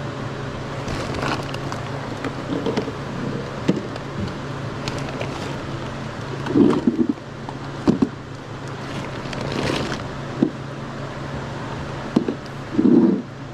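Car running, heard from inside the cabin as a steady low hum, with scattered clicks and rustles and a few short, louder thumps.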